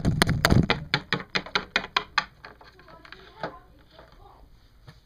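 Hands knocking and fumbling against the camera close to its microphone: a fast run of sharp taps for about two seconds, then a few scattered knocks that die away.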